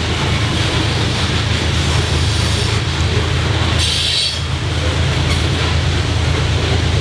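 Loaded coal hopper cars of a freight train rolling past with a steady low rumble and wheel noise, with a brief high screech about four seconds in.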